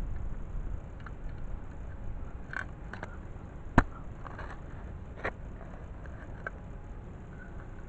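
Folding shovel digging into turf and soil: scattered crunching and scraping, with one sharp click a little under four seconds in, over a low rumble.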